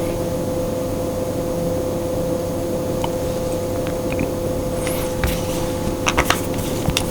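Steady machine hum with a constant tone, with a few light clicks and taps from about five seconds in.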